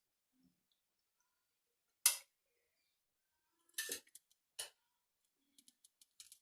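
Metal kitchen utensils clinking against a frying pan: one sharp clank about two seconds in, two more a couple of seconds later, then a few light ticks near the end.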